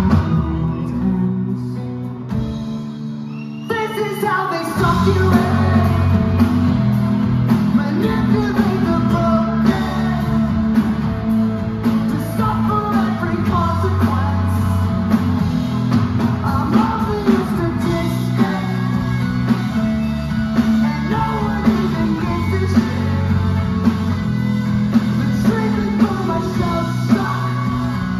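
Live rock band playing: electric guitars, bass guitar and drum kit. The band thins out about two seconds in, then the full band comes back in at about four seconds.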